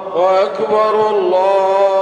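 A man reciting the Quran in the melodic chanted style. A new phrase begins with quick gliding ornaments, then settles into long held notes.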